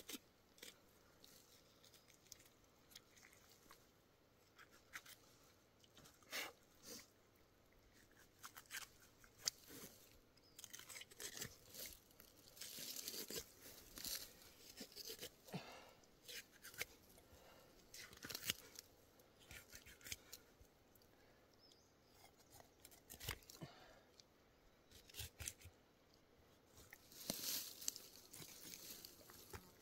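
Knife cutting and tearing through a black bear's hide along the belly, in quiet, irregular scrapes and short ripping sounds, busiest midway and near the end.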